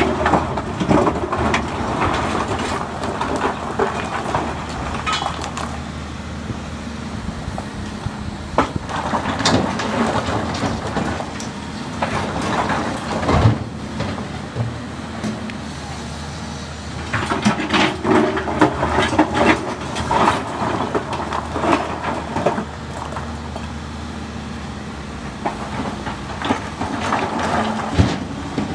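Volvo EC210B excavator's diesel engine running steadily under hydraulic load, with the steel bucket scraping into a pile of broken stone and rocks clattering and rumbling as they are dumped into a truck bed, in repeated bursts.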